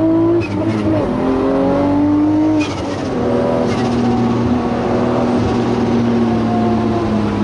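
Nissan Skyline R34 GT-R's 1000-horsepower 3.2-litre RB inline-six, heard from inside the cabin, pulling hard with rising revs and shifting up twice, the pitch dropping sharply about half a second and two and a half seconds in. It then runs at steadier, slowly falling revs.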